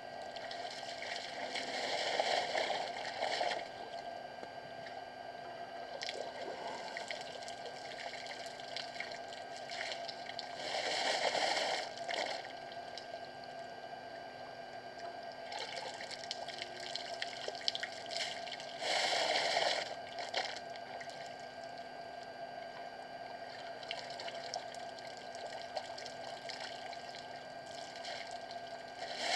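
An African elephant drinking at a waterhole: a gushing, splashing pour about every eight seconds, four times, as it squirts trunkfuls of water into its mouth.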